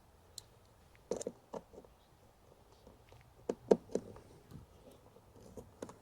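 Scattered clicks and knocks of a screwdriver bit and small parts being handled: a pair about a second in, a tight cluster between three and four seconds in, and one more near the end.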